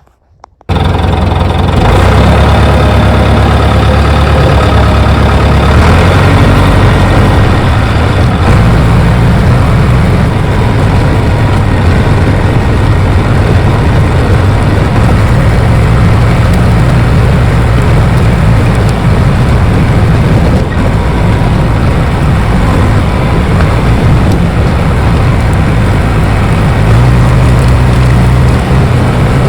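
A bulldozer's diesel engine running steadily and loudly, cutting in suddenly about half a second in, with shifts in its low drone around six seconds in and near the end as the load changes.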